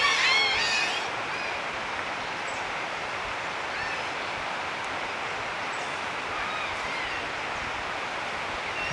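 Steady rushing outdoor background noise, with a few faint, short, high calls scattered through it. In the first second a chorus of warbling, overlapping high calls fades out.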